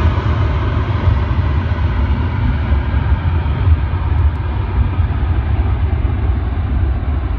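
Jet airliner's engines rumbling as the plane moves away, the higher whine gradually fading and leaving a deep roar.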